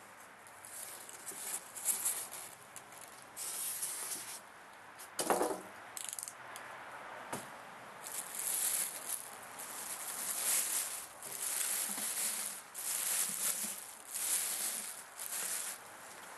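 Packing being handled: the styrofoam top scraping as it is lifted out, with one sharp knock about five seconds in, then clear plastic wrapping rustling and crinkling in repeated bursts as it is pulled open.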